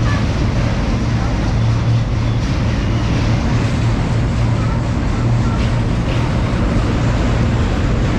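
Diesel-hauled passenger train heard from on board: a steady low rumble and hum with no break or rhythm.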